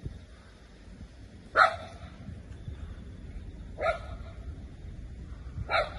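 A dog barking three times, about two seconds apart, over a low steady rumble.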